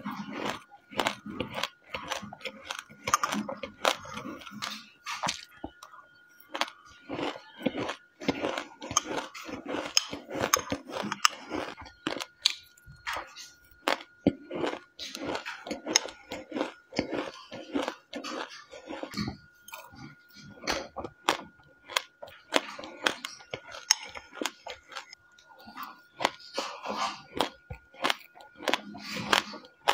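Close-up chewing and crunching of mouthfuls of dry mixed seeds and chili flakes: dense runs of crisp crackles and clicks, in bouts with short pauses.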